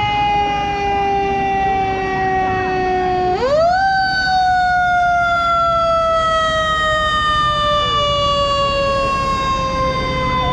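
Fire truck siren wailing as the truck passes. Its pitch slides slowly down, swings quickly back up about three and a half seconds in, then slides slowly down again.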